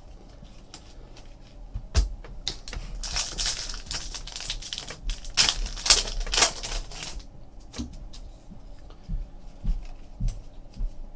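Foil wrapper of a Panini Rookies and Stars football card pack crinkling as it is torn open, a few seconds in. Light clicks and taps of the trading cards being handled come before and after.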